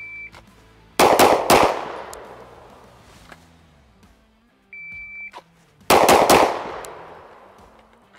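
A shot timer beeps, then a Springfield Armory Prodigy 1911 DS 9mm pistol fires three quick shots, a failure drill of two to the chest and one to the head, each string echoing off the range. About five seconds in, the timer beeps again and another three quick shots follow.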